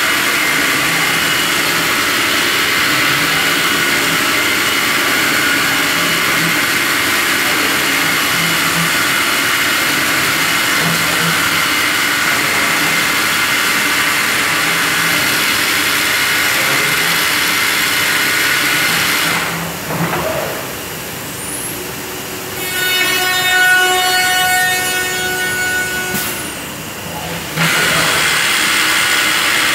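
Masterwood Project 300 V2 CNC router machining a wood panel: a loud, steady cutting and running noise. About twenty seconds in the cutting noise drops away and a high whine of several steady tones sounds for a few seconds, then the full cutting noise resumes near the end.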